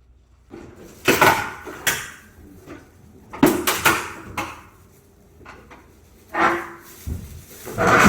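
Metal parts of an air conditioner being handled during removal: a run of clanks and knocks, five or so separate bangs with short rattles between them.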